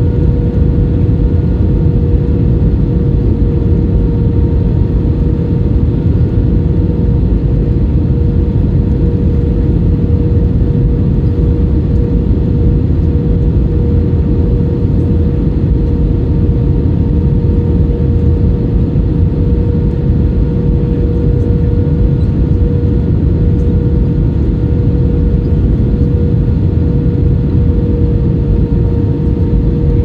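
Airliner cabin noise in flight: jet engines and rushing airflow, loud and steady, with a constant hum on top.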